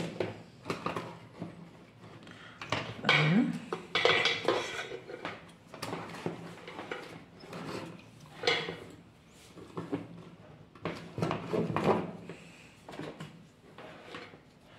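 Handling noises on a workbench: irregular clinks, knocks and rubbing as a circuit board and soldering tools are picked up, turned over and set down.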